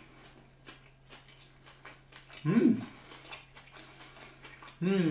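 A man chewing a bite of a soft vegetable roll, with faint mouth clicks, and humming twice with his mouth closed in approval: a short rising "mmm" about halfway and a longer wavering one near the end.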